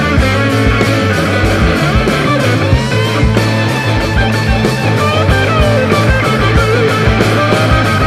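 Rock music with guitar and a steady, fast drum beat.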